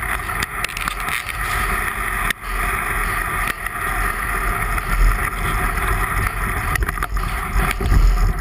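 Kayak hull grinding steadily over beach pebbles as it slides down into the water, then paddle strokes splashing near the end.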